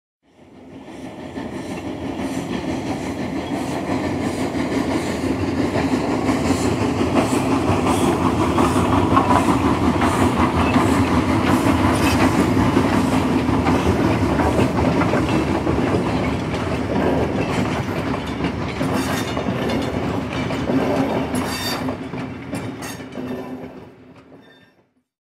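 A train running on its track, the wheels clicking rhythmically over the rails with a steady rumble underneath. It fades in during the first couple of seconds and fades out near the end.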